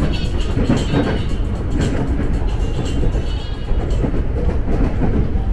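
KRL Commuter Line electric train running on the rails: a steady low rumble with light wheel clicks, and high tones over it.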